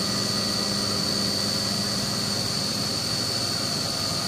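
CNC vertical milling machine running with its spindle turning, not yet cutting: a steady high whine over an even machine hiss, with a lower hum that fades out about halfway through.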